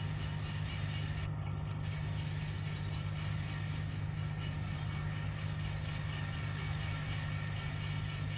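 Tractor engine running steadily under load, pulling an Agroplus 430 S rotary trench tiller that cuts a furrow through the soil, with scattered light ticks and clicks over the even drone.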